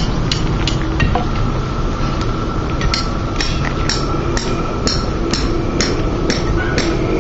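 Hammer blows, about two a second, with a lull of a couple of seconds early on: formwork being knocked loose from set concrete. Each strike rings sharp and high. A steady low rumble runs underneath.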